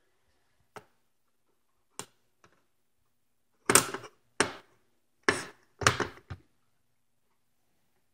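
Plastic wire egg slicer being closed and handled on a hard-boiled egg: a few faint clicks, then about five sharp plastic clacks in quick succession in the middle.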